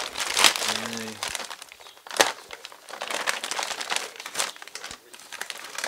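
Clear plastic wrapping crinkling and rustling in irregular handfuls as it is pulled open, with one sharp crackle about two seconds in.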